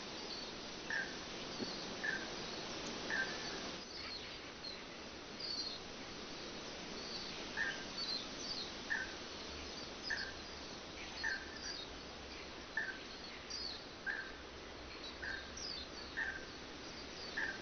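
Forest birds calling over a steady rush of running water: one bird repeats a short note about once a second, pausing for a few seconds midway, while others give quick high, falling chirps.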